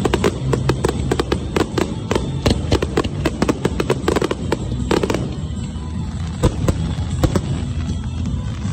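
Aerial fireworks bursting in rapid volleys of sharp bangs and crackles. They are densest in the first five seconds and thin out after.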